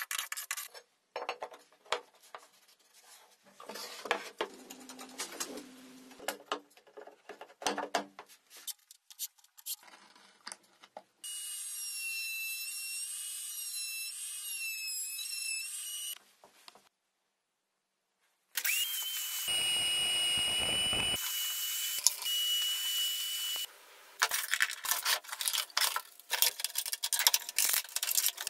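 A run of workshop sounds: scattered clicks and scrapes of wood and tools, then a table-mounted router's motor running steadily for about five seconds. After a short silence a louder motor runs with a steady high whine, and near the end plastic parts clatter as a vacuum cleaner housing is handled.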